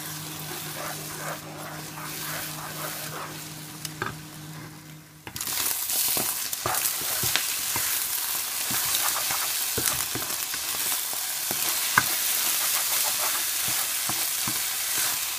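Beaten eggs sizzling in hot olive oil in a wok as they are scrambled, with the spatula scraping and tapping against the pan. A steady low hum under the first five seconds stops abruptly, and from then on the sizzling is louder.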